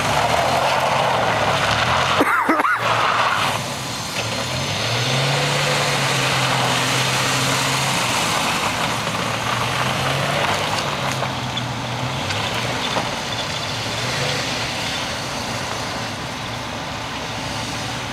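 SUV engine running and revving while the vehicle spins donuts on a snow-covered lot. The engine note climbs about four seconds in, holds, and eases off about twelve seconds in. A brief burst of noise comes about two seconds in.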